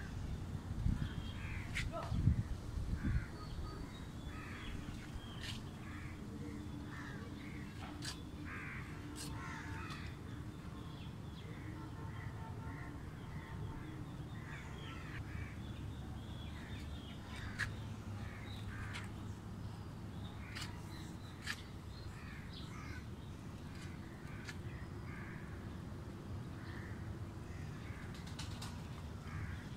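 Crows cawing on and off, short calls scattered throughout over a steady low rumble.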